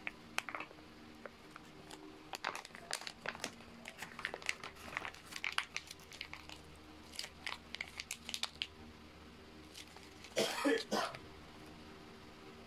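Foil food pouch crinkling and crackling in bursts as it is squeezed and its sauce and meat are pushed out over rice, with a short, louder burst about ten seconds in.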